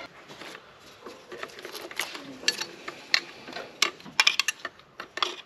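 Sharp clicks and light clatter from plastic wiring-harness connectors and a small metal pick tool being worked on the engine, with a quick run of clicks near the end.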